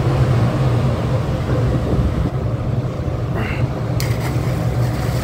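Steady low drone of a ship's machinery, with a splash about four seconds in as a large fish drops back into the sea.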